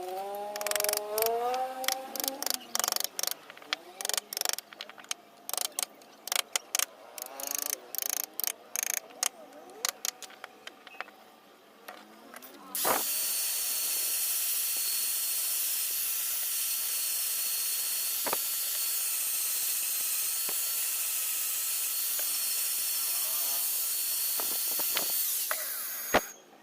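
Woodcarving work: a quick irregular run of sharp taps and clicks, then a small high-speed power tool switches on about halfway through, runs at a steady whine for several seconds, and cuts off near the end.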